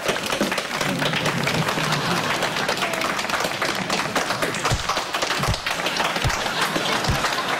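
Applause from many clapping hands, steady throughout. From about the middle on, a dull low thump comes roughly every 0.8 seconds.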